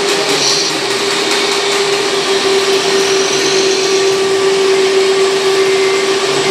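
Electric hydraulic pump of a radio-controlled Terex model excavator running with a steady whine over a hiss while the boom and bucket move.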